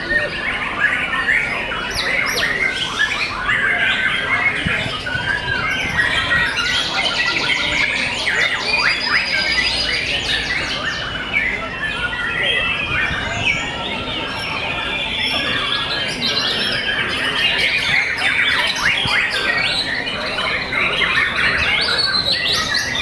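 Many caged white-rumped shamas (murai batu) singing at once: a dense tangle of overlapping whistles, chirps and chattering phrases, with a fast trill about seven seconds in.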